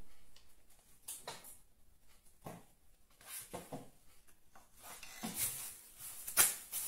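Faint, scattered scrapes and light clicks of a knife being worked around a sponge cake on a ceramic plate, with a few louder knocks near the end.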